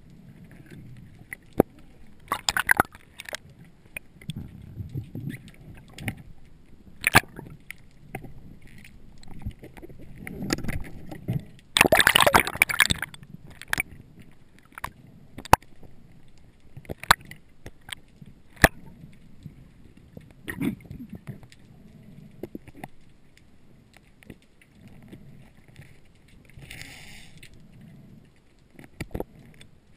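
Underwater sound heard through a GoPro HD Hero 2 in its sealed underwater housing: scattered sharp clicks and knocks over a low rumble of moving water, with a louder rushing burst about twelve seconds in and a brief hiss near the end.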